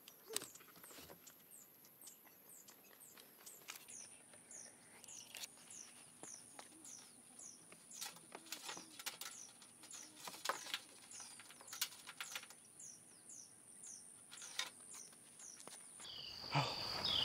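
Faint bird chirping: short high chirps that fall in pitch, repeated about twice a second, over a thin steady high-pitched hiss, with a few small clicks. Near the end a lower steady high tone comes in.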